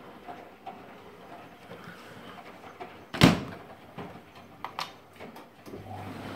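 The door of a Miele heat-pump tumble dryer is shut with one loud thump about three seconds in, followed by a few light clicks as its Start/Stop button is pressed. Near the end the dryer starts its cycle with a steady low hum from the drum turning.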